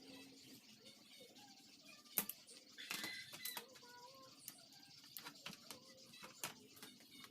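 Faint, scattered clicks and taps of hand tools working on an amplifier circuit board, the sharpest about two seconds in and a small cluster just after, with faint short chirping tones in the background.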